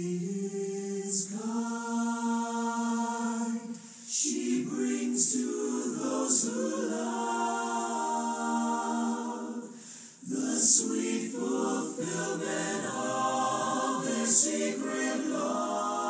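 Background music: several voices singing slow, held chords in a choral style, with little or no instrumental backing.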